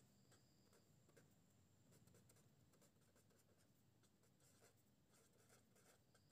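Very faint scratching of a pen writing on paper, in short strokes.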